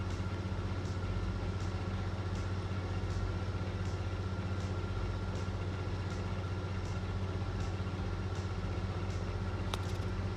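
A steady low machine hum, like a motor or air conditioner, with faint regular ticks about every three-quarters of a second. One sharp click comes near the end.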